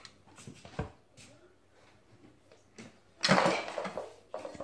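Light clicks and knocks of wooden toy train track pieces and plastic track supports being handled and fitted together, then a loud burst of noise about three seconds in that lasts about a second.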